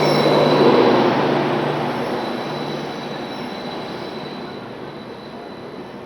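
Rajdhani Express passenger train running past on the rails, gathering speed as it pulls out. The rumble of wheels and coaches is loudest about a second in, then fades steadily as the train moves away, with a faint thin high squeal from the wheels.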